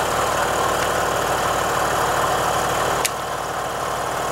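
Scroll saw running with its blade stroking freely, not cutting wood: a steady mechanical drone with a low hum. One sharp click about three seconds in.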